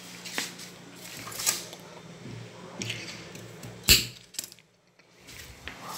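A few clinks and knocks of small hard objects being handled, the loudest a sharp knock about four seconds in, followed by a brief moment of near silence.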